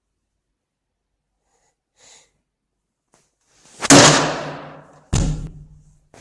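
Two heavy blows pounding on a door, about a second apart, each ringing out briefly after the hit.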